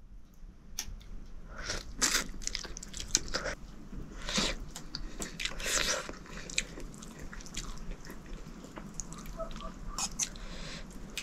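Someone eating noodles close to the microphone: irregular chewing and biting sounds with small crunches.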